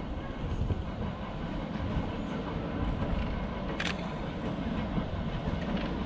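Steady low rumble of outdoor city ambience, with one sharp click about four seconds in.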